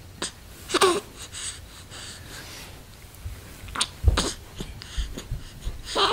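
A baby's short squeaks and grunts, a few separate sounds some seconds apart, with a low grunt about four seconds in.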